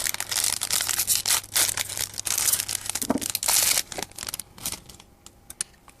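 Pokémon booster pack's foil wrapper being torn open and crinkled by hand, a dense run of crackling rustles that dies down near the end.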